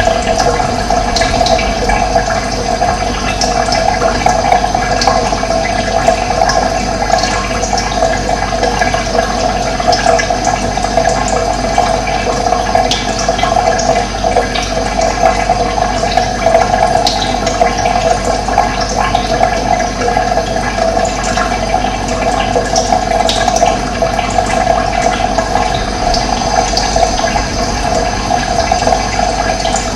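Running water flowing steadily, with a strong churning rush. Birds chirp now and then, in short high calls.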